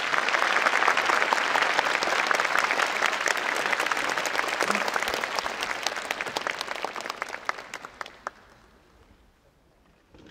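A large audience applauding, a dense spread of many hands clapping that dies away about eight seconds in.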